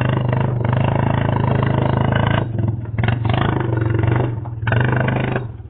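ATV engine running hard under load as it tows a vehicle on a strap, easing off briefly twice.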